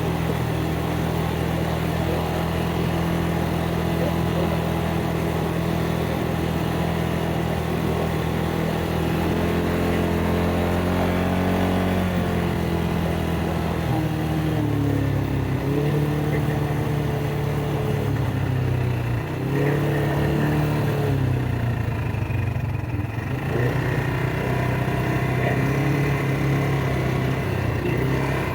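ATV engine running at a steady pitch, then rising and falling in pitch again and again from about a third of the way in as the throttle is opened and eased off.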